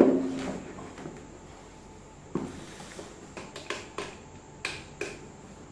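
Plastic base of a rechargeable table fan set down with a thump on a tiled floor, with a short ringing after it, then a few lighter plastic knocks and clicks as the assembled fan is handled and turned.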